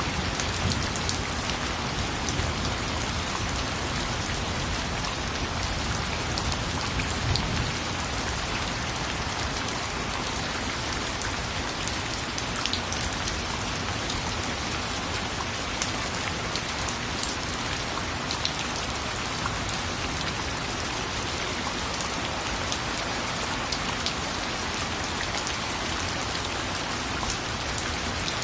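Steady rain falling, with many individual drops pattering on a hard surface.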